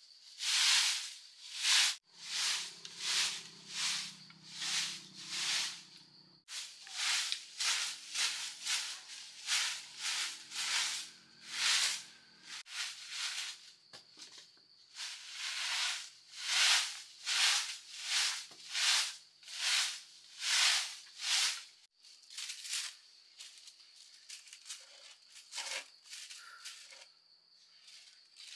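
Rhythmic scraping strokes, roughly two a second, from a hand tool working wood or bamboo, in runs broken by short pauses.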